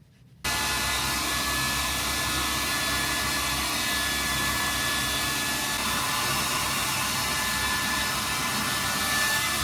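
A household appliance's electric blower motor switches on abruptly and runs steadily, a loud rush of air with a faint high whine.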